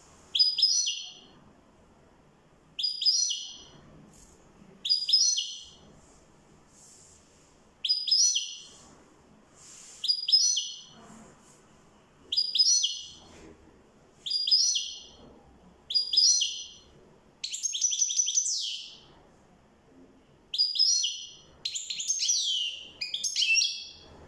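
European goldfinch singing in short, high chirping phrases that come about every two seconds. A longer phrase comes a little past halfway, and near the end the phrases come faster and more varied.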